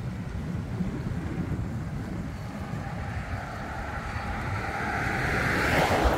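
Wind buffeting the microphone, with a vehicle passing close by on the road, its tyre and engine noise swelling and loudest near the end.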